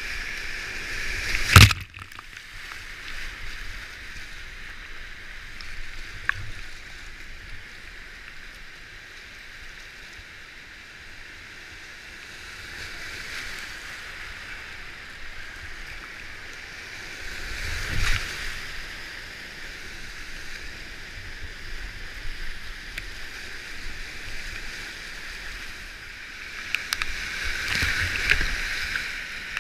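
Whitewater rapids of a high-water creek rushing and sloshing around a kayak, heard close up from the boat, a steady hiss of fast water. A sharp hit about a second and a half in is the loudest sound; the water swells about halfway through and grows louder and busier near the end as the boat plunges into a foaming hole.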